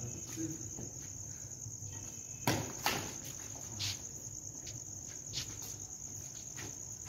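Crickets chirring steadily, with sharp racket strikes on a shuttlecock in a badminton rally: two loud hits about two and a half seconds in and a few fainter ones later.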